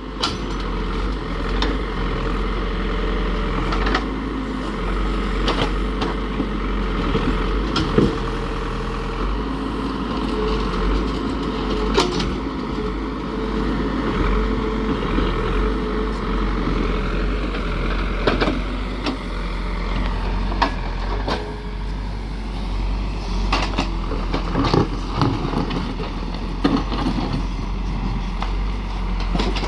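Diesel engine of a heavy construction machine running steadily, with sharp metallic knocks and clanks every few seconds from the machine at work.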